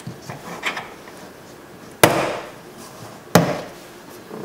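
Plastic trim bezel around a car door's inside handle being pried off: a few small clicks, then two sharp snaps about a second and a half apart as its clips pop free.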